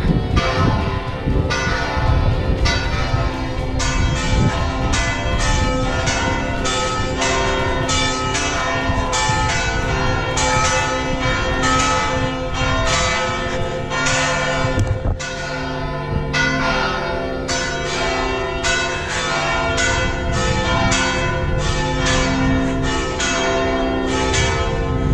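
Church bells ringing in a steady run of strokes, about two a second, their tones hanging on between strikes.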